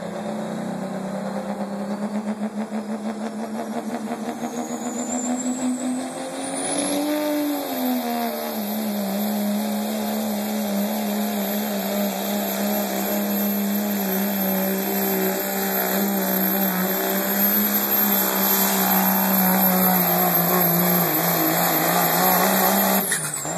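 Dodge Ram diesel pickup pulling a weight-transfer sled at full throttle. The engine holds high, steady revs, with a brief rise and dip about seven seconds in, over a high turbo whistle that climbs and then holds. Near the end the throttle comes off and the sound drops away.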